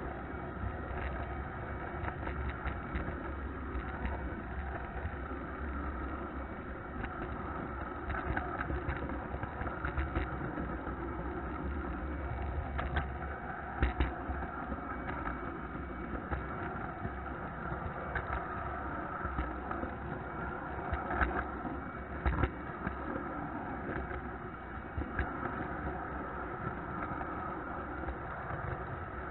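Model train running on a layout, heard from a camera riding on a flat car: a steady rolling hum of wheels on track, with scattered short clicks all along.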